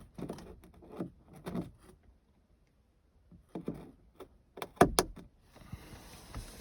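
Light knocks and clicks from handling parts and tools during work on a car's sunroof trim. Two sharp clicks about five seconds in are the loudest, and a faint steady hiss follows.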